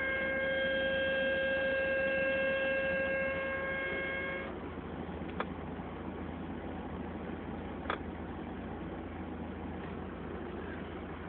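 VAZ-21074 car with an extraneous noise from the trunk: a steady pitched whine with overtones cuts off suddenly after about four and a half seconds. Steady vehicle noise with a low hum continues, with two sharp knocks a few seconds apart.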